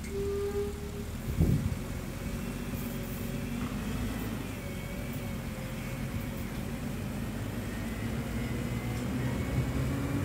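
Semi truck's diesel engine pulling away with an empty side dump trailer, running steadily and growing a little louder toward the end, with a single thump about a second and a half in.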